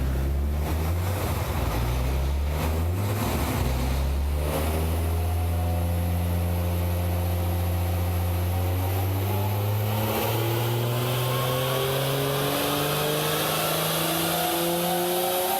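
Engine of a turbocharged BMW E30 running, holding a steady note for the first few seconds. From about ten seconds in its pitch climbs slowly and evenly, as in a gradual acceleration.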